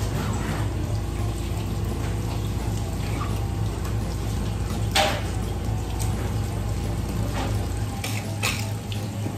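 Tap water running steadily into a sink, with a few sharp knocks, the loudest about halfway through, over a steady low hum.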